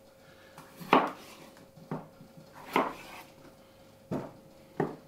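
A kitchen knife cutting potatoes on a wooden cutting board: five sharp knocks of the blade through the potato onto the board, roughly one a second, as the potatoes are quartered and the pieces dropped into a plastic bowl.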